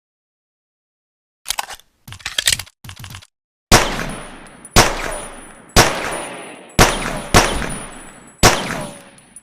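Pocket pistol firing six shots about a second apart, each crack trailing off in a long decaying echo, with a thin high whine running over them. A few short metallic clicks and rattles come before the first shot.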